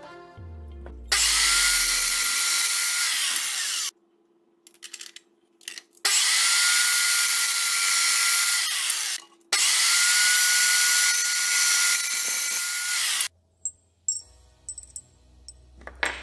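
Small electric motor, as in a power drill, run in three bursts of a few seconds each. Its whine rises as it spins up, holds a steady high pitch, then drops as it stops.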